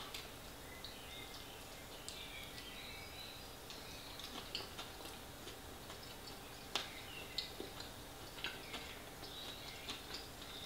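Close-up mouth sounds of a person chewing a mouthful of pie: small wet clicks and squeaky smacks, with a few sharper smacks in the second half.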